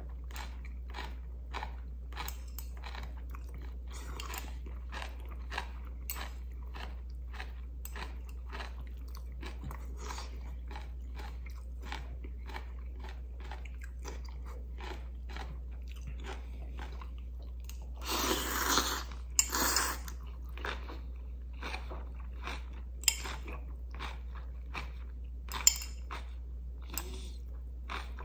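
Close-up eating sounds of ramyun noodles and crunchy kimchi: wet chewing and crunching bites, two to three a second. About 18 seconds in comes a louder slurp of noodles lasting about two seconds, and a few sharp clicks follow later.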